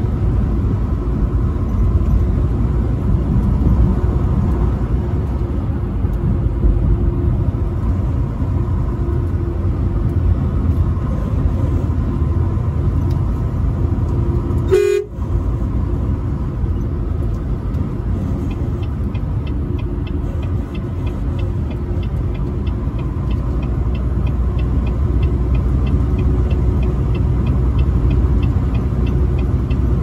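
A truck horn tone holds steady over the heavy low rumble of a truck cab driving on the highway, cutting out briefly about halfway. In the second half, light ticking repeats quickly and evenly.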